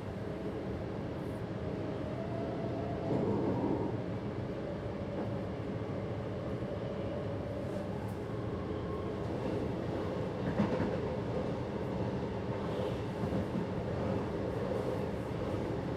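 Stopping passenger train running along the track, heard from inside the driver's cab: a steady rumble of wheels and running gear, with one short louder knock about two-thirds of the way through.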